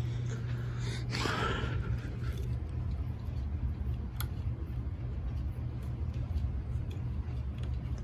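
Ceiling fan running with a steady low motor hum, with a single click about four seconds in.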